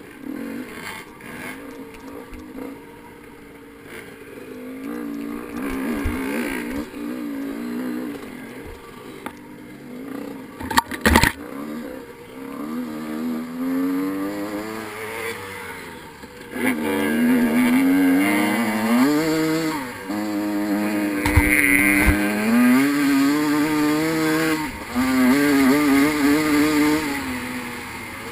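Motorcycle engine revving hard and easing off, its pitch climbing again and again and dropping back as the rider accelerates and shifts. A sharp knock about eleven seconds in is the loudest single moment.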